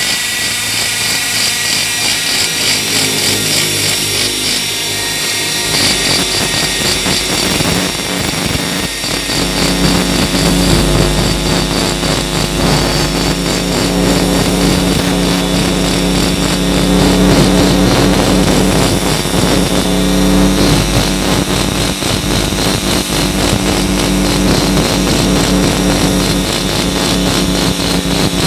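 Flexible-shaft rotary grinder running steadily, its long bit grinding inside the exhaust port of a Suzuki Shogun's aluminium cylinder head to clear out carbon and open up the port. The tone of the tool changes a few times as it works.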